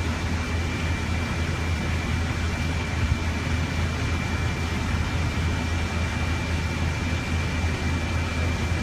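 Steady low mechanical drone of running engines and pumping machinery, with a faint high whine and no distinct knocks or changes.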